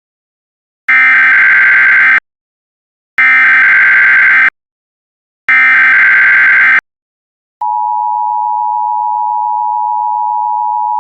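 Emergency Alert System signal: three bursts of SAME header data, each a harsh digital warble about a second long, then, from about seven and a half seconds in, the steady two-tone EAS attention signal. This sequence marks the start of an emergency alert broadcast.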